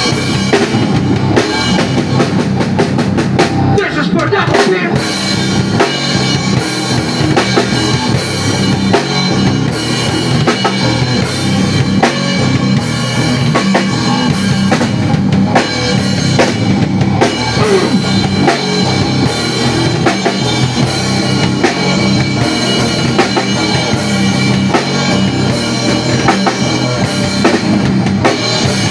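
A band jamming live: a drum kit keeps up a steady beat on bass drum and snare under sustained pitched tones from the other instruments.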